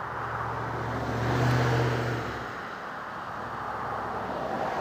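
A motor vehicle's engine hum swelling and fading, like a vehicle passing, over steady outdoor background noise.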